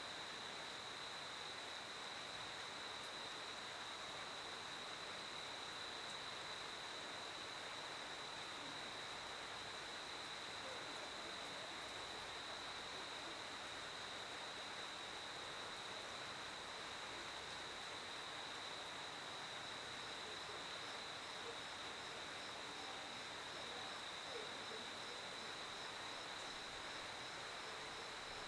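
Crickets trilling: one steady, unbroken high tone over a faint hiss, with a second, higher pulsing chirp joining about two-thirds of the way through.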